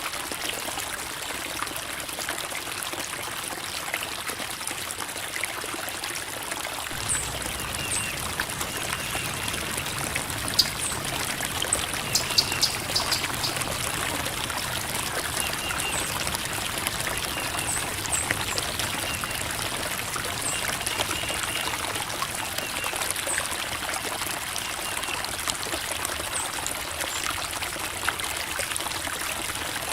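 Creek water babbling and trickling over rocks, a steady, even flow.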